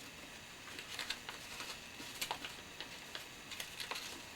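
Paper crinkling and rustling in short, irregular little clicks as an origami model's tail is folded by hand into a mountain fold.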